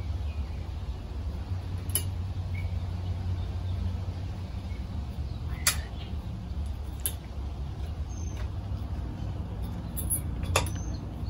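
A few scattered light clicks and ticks as ceiling-fan wires are handled against a metal mounting bracket, over a steady low rumble.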